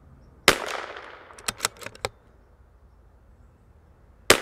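A CZ 457 MTR .22 LR bolt-action rifle fired twice, shooting RWS Special Match, about four seconds apart; each shot has a fading echo. Between the shots come three quick clicks as the bolt is cycled.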